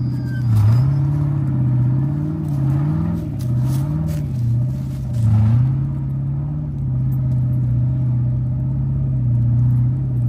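Off-road vehicle engine running at low revs, its pitch dipping and rising several times with small throttle changes, with a few short clatters over the first half.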